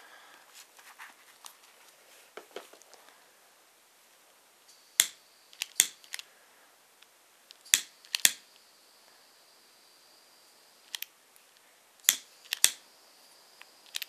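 Piezo igniter of a butane jet torch (crème brûlée torch) clicking sharply about nine times in small groups as it is being lit, with a faint steady high whistle from about five seconds in. Light handling rustle before the clicks.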